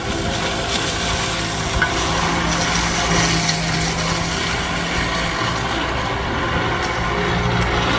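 Excavator running with a weed-cutting attachment, a steady engine hum under a continuous rough shredding noise of the cutter going through weeds and brush.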